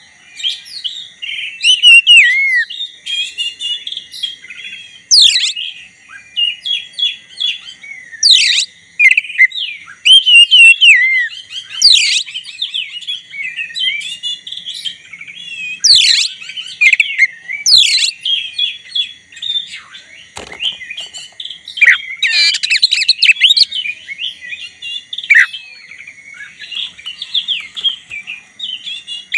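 Black-breasted oriental magpie-robin in full, continuous song: a rich, varied run of warbled and whistled phrases, broken every few seconds by loud, sharp upward-sweeping whistles.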